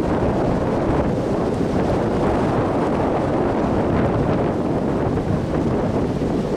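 Strong windstorm wind blowing steadily and buffeting the microphone, a dense low rumble with no letup.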